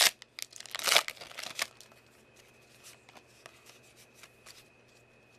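Foil wrapper of a Pokémon trading card booster pack crinkling as it is pulled open, in two loud bursts at the start and about a second in. Then soft clicks and flicks of the cards being handled and spread out.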